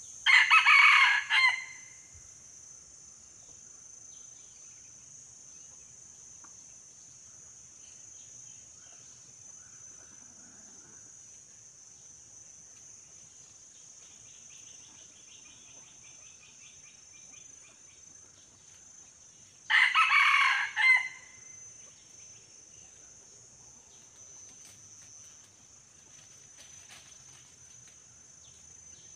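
Red junglefowl cock crowing twice, about twenty seconds apart, each crow short and loud, over a steady high drone of insects.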